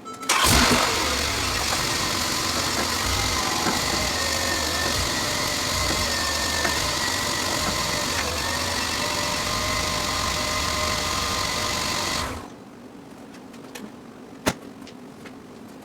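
A machine starts suddenly, runs steadily with a high whine for about twelve seconds, then shuts off, followed by a couple of sharp clicks.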